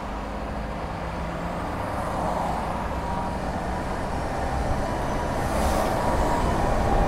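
Inside a moving car: steady engine hum and the rumble of studless winter tyres on a snow- and ice-covered road, slowly growing louder. Near the end a short rush of noise as an oncoming truck passes.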